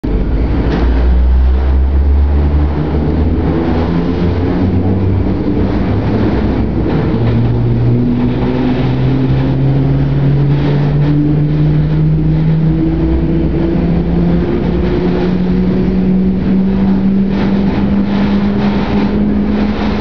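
Deep roar and hum of an EN57 electric multiple unit's traction motors heard inside the passenger car, the humming tones climbing steadily in pitch, in a few small steps, as the train picks up speed.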